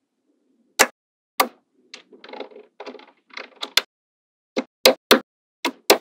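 Magnetic balls snapping together in sharp clicks, about ten of them, as rows of balls are pressed onto a panel, with short spells of balls rattling and clicking against each other in the middle.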